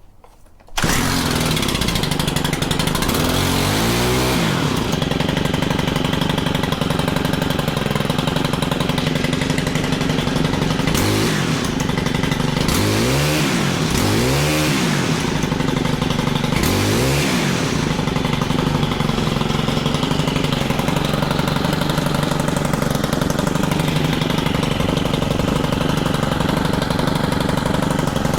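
Stihl FC91 edger's small 4-MIX engine catching about a second in and running, with the throttle revved up and back down about four times, on a test run on fresh fuel after its unmixed gasoline was dumped.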